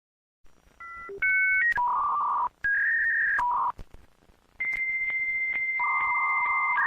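Dial-up modem connecting: a quick run of paired keypad dialing tones, then the answering modem's long high steady tone, joined by the lower warbling handshake tones near the end.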